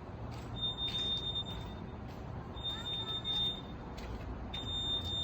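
Fire alarm sounding: a high, steady electronic beep about a second long, repeating every two seconds, three beeps in all. A low rumble runs underneath.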